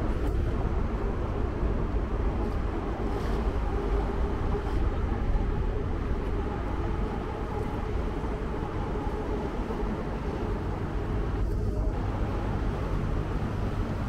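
Sightseeing boat's engine running at a steady cruise, a constant low rumble with a faint hum over it.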